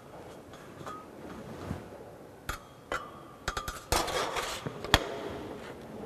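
Steel sheet clinking and knocking against a manual sheet-metal folding machine as it is slid in and positioned: a few sharp metallic clicks with short ringing, bunched between about two and a half and five seconds in, with a brief rattle around four seconds.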